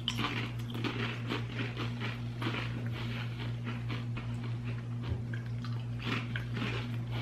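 Tortilla chips (Doritos) being bitten and chewed, with irregular small crunches throughout, over a steady low electrical hum.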